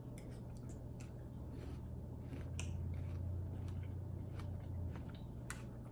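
Scattered light clicks and taps of fruit and kitchen things being handled, over a low steady hum that grows a little louder in the middle and eases off near the end.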